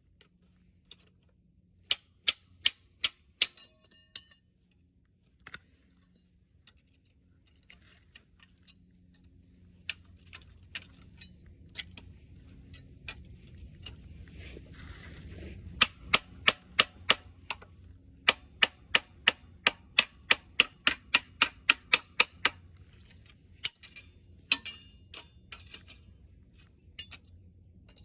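Sharp metal-on-metal clicks in runs, the longest an even series at about three a second in the second half, while a cam gear is being worked off an engine's camshaft with hand tools.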